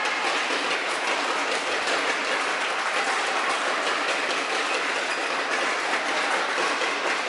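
Crowd of spectators clapping and applauding steadily in a large sports hall, a dense continuous patter of hand claps.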